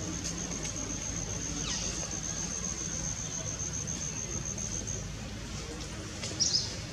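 Outdoor background sound: a steady low hum under a thin, high, even trill that stops about five seconds in, then one short high squeak near the end.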